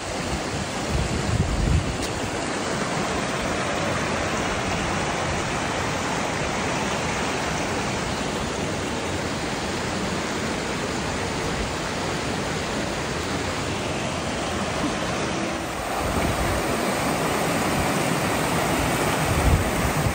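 Stream rushing over rocks: a steady, loud wash of flowing water, with a few low bumps on the microphone near the start and near the end.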